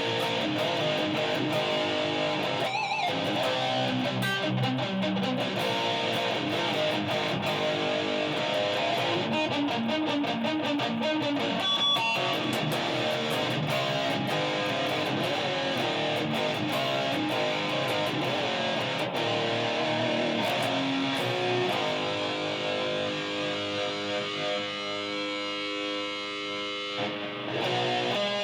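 Electric guitar playing heavy metal and rock riffs, thinning to fewer, longer held notes in the last few seconds.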